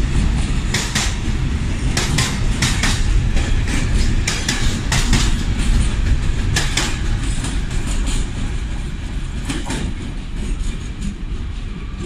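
A container freight train's flat wagons rolling past close by: a steady heavy rumble with frequent sharp wheel clicks on the track. The clicks thin out and the rumble fades in the last few seconds as the end of the train moves away.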